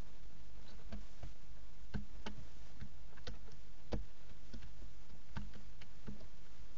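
Irregular light clicks and taps, about a dozen and loudest about two and four seconds in, from barn owls shifting on the wooden nest box, over a steady low hum.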